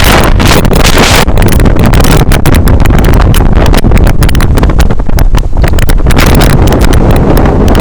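Loud wind buffeting the microphone on the roof of a moving bus, a heavy low rumble broken by rapid crackles.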